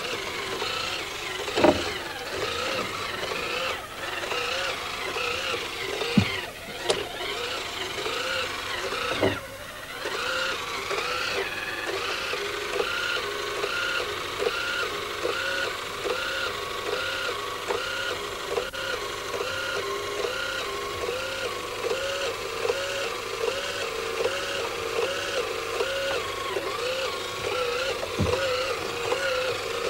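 Toy police car's electronic siren wailing up and down in a quick, steady repeating cycle as the battery car runs about, with a few thumps as it knocks around; the last thump, near the end, comes as it tips over.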